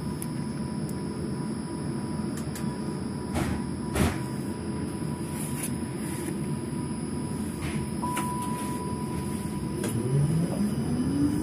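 Tram cab, standing: a steady low hum, a click about four seconds in and a beep lasting about a second and a half near eight seconds. Near the end the traction motor whine rises steadily in pitch as the tram pulls away.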